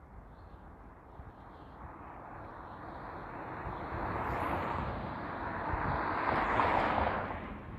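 A road vehicle passing: its tyre and engine noise swells over several seconds, is loudest near the end, then drops away quickly.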